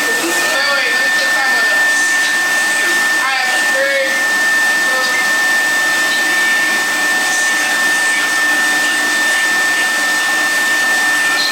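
Steady loud rushing noise with a constant high-pitched whine running through it, and faint voices underneath.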